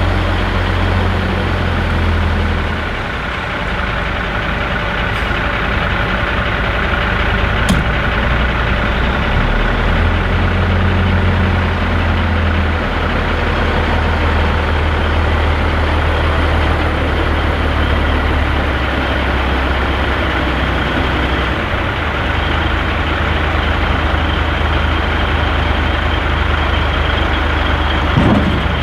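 Heavy diesel semi-truck engine running under way, likely the cabover Peterbilt's Caterpillar. Its low drone steps in pitch several times, over road and cab noise. There is a single sharp click about eight seconds in.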